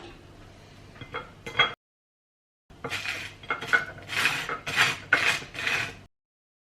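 Dishes and cutlery clinking and clattering, in two short bursts: a few clinks, a full drop to silence, then about three seconds of quick repeated clatter that cuts off abruptly.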